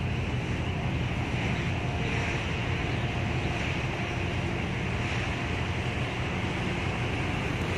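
Steady wind noise on the microphone on a cruise ship's open deck as it sails out of harbour, over a low, even rumble from the ship and water washing along the hull.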